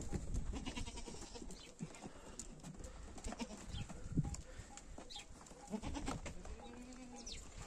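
Goats bleating, with a call about six seconds in, over scattered knocks and shuffling from the herd.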